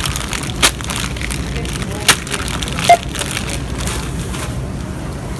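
A few sharp crinkles and knocks of a plastic bag and candy wrapper being handled at a self-checkout, with one short electronic beep from the checkout scanner about three seconds in, over a steady hum of store background noise.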